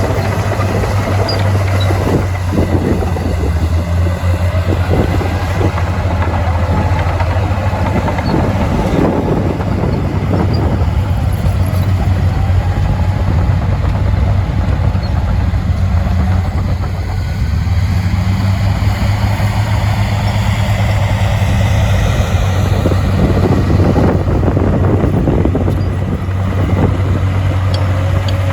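Heavy diesel earthmoving machinery running steadily, its engine pitch rising and falling as it works, with a few clanks in the first few seconds.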